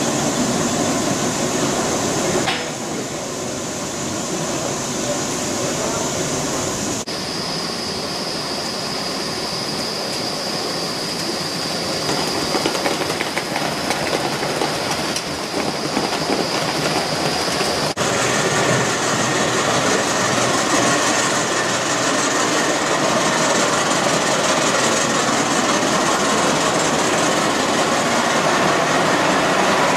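Gauge 1 model trains running on the track: a steady rolling clatter of wheels over the rails. The sound changes abruptly a few times, at cuts between trains.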